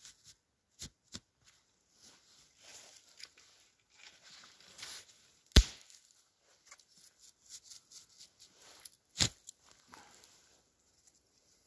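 Dry dead branches cracking and snapping by hand, with rustling of twigs and crunching in snow between the snaps. Two sharp cracks stand out, about five and a half and nine seconds in, the first the loudest.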